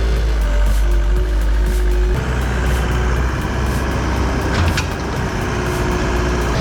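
Heavy machinery engine running with a steady low rumble; the sound changes abruptly about two seconds in, and a couple of short sharp clicks come near the end.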